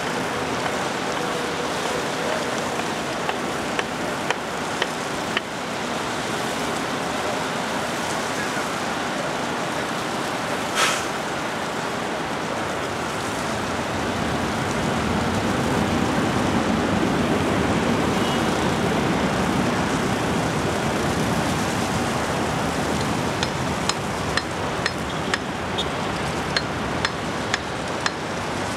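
Steady rushing roar of a Boeing 787's jet engines heard from across the airfield, mixed with road traffic, growing louder about halfway through as the airliner lines up and starts its takeoff roll. A single sharp crack about eleven seconds in, and a run of light ticks near the end.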